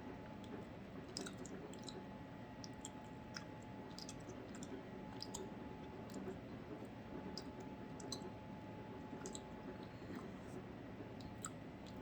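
A person chewing, with faint, irregular small mouth clicks over a steady low hum.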